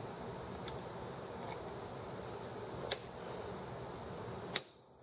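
Two sharp clicks about a second and a half apart, from a hand working on a small model engine, over a steady background hiss. The hiss cuts out suddenly right after the second click.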